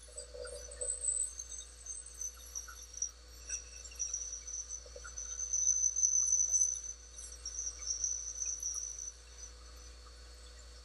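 Steel calipers scraping along an ebony pen blank on a lathe mandrel: a thin, wavering high-pitched squeak that comes and goes, loudest in the middle, with a few small clicks of metal on wood.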